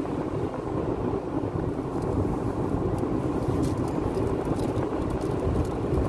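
Steady road noise inside a moving car's cabin: tyres on the pavement and the car running at highway speed, with a few faint ticks in the second half.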